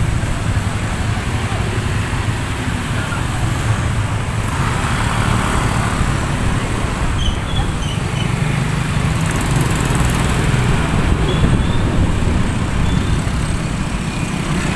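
Small motorcycle engine running steadily, with road and wind noise, as heard from on board. Street traffic is mixed in.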